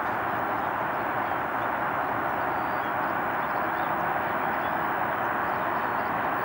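Steady, even outdoor background roar with no distinct events.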